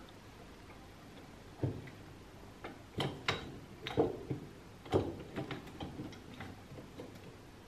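Hand pop-rivet tool being squeezed to set a rivet through the lamp's sheet-metal base: a run of sharp, irregular clicks, loudest between about three and five seconds in.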